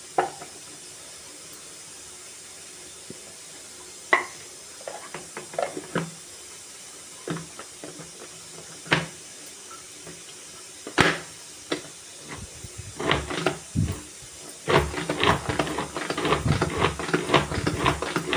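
Small hand-operated food chopper being loaded with tomato pieces and closed, giving scattered knocks and clicks, then worked by hand in the last few seconds with a fast run of clattering clicks as it crushes the tomatoes.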